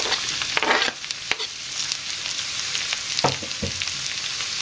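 Sliced oyster mushrooms sizzling in hot sunflower oil in a wok on high heat, with a steady hiss. In the first second a knife scrapes the last pieces off a plastic cutting board into the pan, and a few sharp knocks come about three seconds in.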